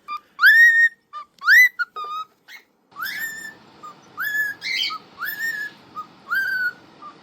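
Male cockatiel whistling a string of short notes that mostly rise and then hold, repeated about once a second.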